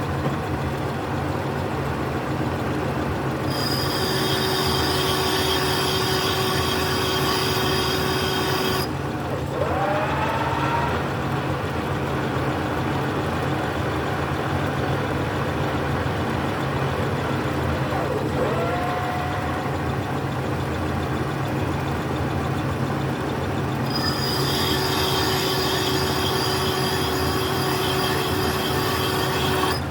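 Metal lathe running during thread cutting, with a steady motor hum. Twice a high whine comes in and lasts about five seconds, and a few short rising whines come between those stretches.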